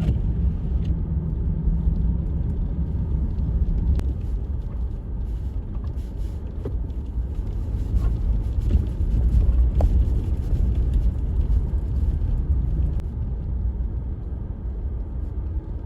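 Strong wind buffeting the microphone in a blizzard: a steady low rumble that swells and eases, with a few faint clicks.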